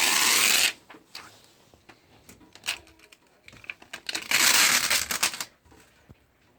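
Packaging being handled during an unboxing: two loud bursts of crinkling and tearing, one at the start and one about four seconds in, with light clicks and rustles between.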